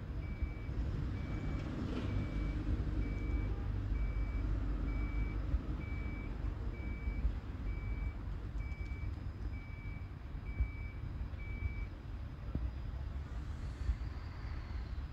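An electronic warning beeper sounds a single high tone about once a second, stopping near the end, over a low rumble.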